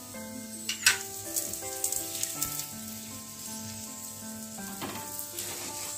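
Aloo paratha frying in oil on a hot iron tawa: a steady sizzle with small crackles, and a metal spatula tapping and scraping on the pan, sharpest about a second in. Soft instrumental background music of slow held notes plays under it.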